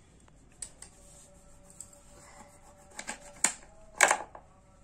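Small kitchen knife cutting a lemon in half over a plastic chopping board: a few sharp clicks and knocks as the blade goes through and hits the board, the loudest about four seconds in.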